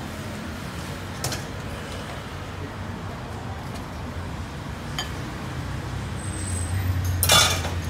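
Street traffic running steadily, with a vehicle's engine swelling near the end and a short loud hiss, the loudest sound. A couple of sharp clicks come from the metal ladle and bowls as broth is served from the pot.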